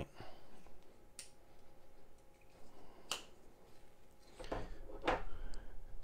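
Cold Steel folding knives being handled: two sharp single clicks, then a cluster of knocks and clicks near the end as one knife is set down on the table and another reached for.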